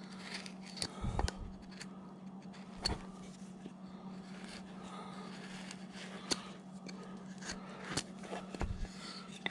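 Hand carving gouge cutting and scraping into a wooden carving blank, giving scattered short scrapes and clicks of the blade, over a faint steady hum.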